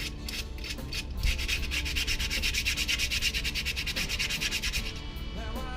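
Sandpaper rubbed back and forth over a rusty steel rabbit trap, scouring off rust left after electrolysis cleaning: a run of rapid scratchy strokes, quickest and loudest in the middle seconds.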